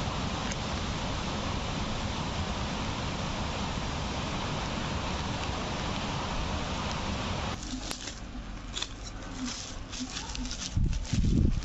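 A steady even hiss, which cuts off about two-thirds of the way through. Then the crinkling and crackling of a black plastic bubble mailer and kraft paper envelope being handled, with a louder rustle near the end.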